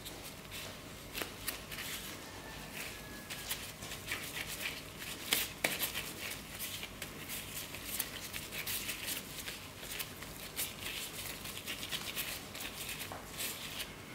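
Gloved hands kneading and pulling apart soft, sticky kkwabaegi dough on an aluminium tray: a run of irregular sticky clicks and slaps.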